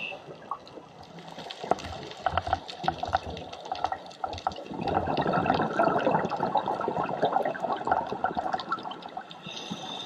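Scuba diver breathing through a regulator, heard underwater: exhaled air bubbling out with clicks and gurgles, then a louder rush of bubbles between about five and seven seconds in.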